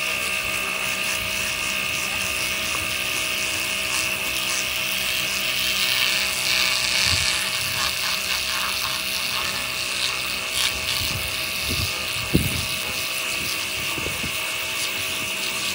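High-pressure washer (jet pump) running with a steady whine while its water jet hisses against a banana and concrete blocks. There is one sharp knock about three-quarters of the way through.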